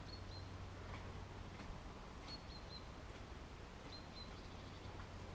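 Faint, high, short bird chirps in quick pairs and threes, three times, over a low steady hum.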